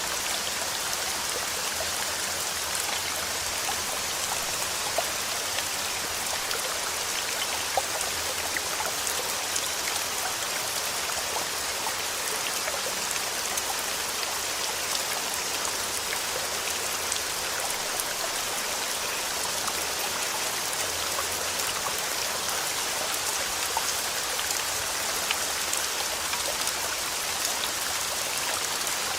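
Steady rainfall: a constant hiss of rain with many small drops tapping on a surface.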